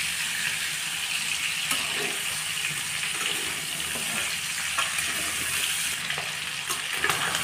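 Fatty pork pieces sizzling as they dry-fry without oil in a pan, rendering their own fat, with a few scrapes of a metal spatula stirring them.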